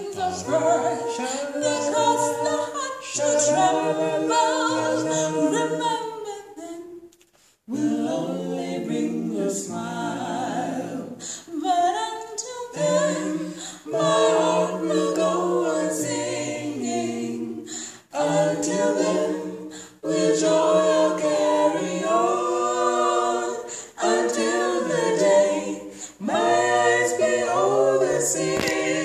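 Mixed vocal quartet of two men and two women singing a slow gospel song a cappella in close harmony, in phrases of a few seconds with a brief breath gap about seven seconds in.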